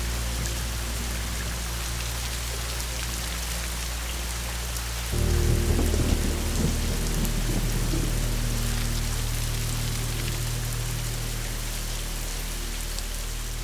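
Steady rain falling, with a roll of thunder about five seconds in. Under it runs a low, sustained musical drone whose chord changes as the thunder comes in.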